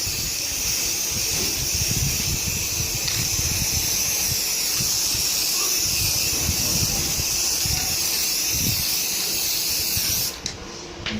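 Steady hiss of a spray applying a finishing coat, cutting off suddenly about ten seconds in.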